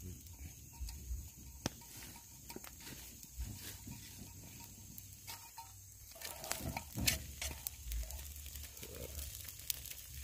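Fish cooking over a wood campfire, sizzling with scattered crackles and pops as soy sauce hits the hot fish.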